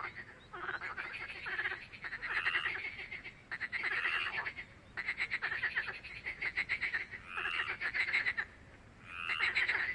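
Frogs croaking in a pond chorus: calls about a second long, each a quick run of rasping pulses, following one another every second or so.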